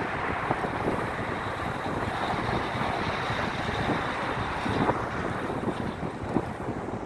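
Strong wind buffeting the microphone while cycling, a steady rough rumble. A faint high whine is also there in the middle.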